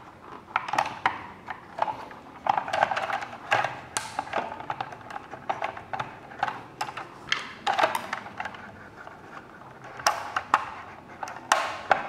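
Hard plastic parts of a toy forklift being handled and fitted together: irregular clicks, snaps and scraping rattles, with a few louder snaps spread through.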